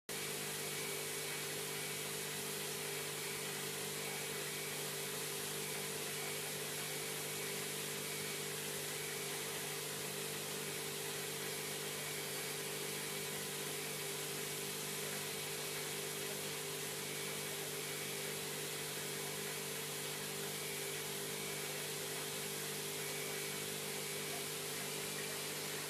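Steady motor hum with an even hiss over it, from an aquarium's pump or filter equipment running without change.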